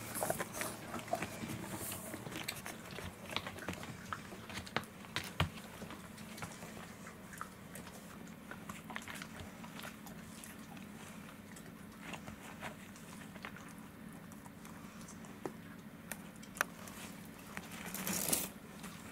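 A Welsh corgi gnawing a rawhide chew: irregular clicks and crunches of teeth working the hide, busier in the first few seconds, with a louder burst near the end.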